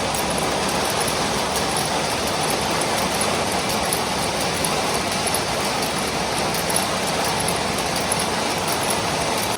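Steady mechanical noise: an even rumble and hiss that holds constant without a break.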